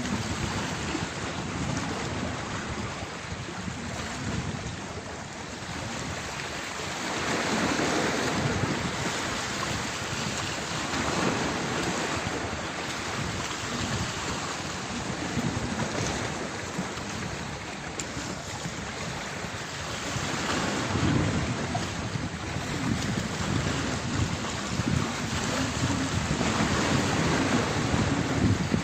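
Wind buffeting the microphone over open water, a rushing noise that swells and eases in gusts every few seconds.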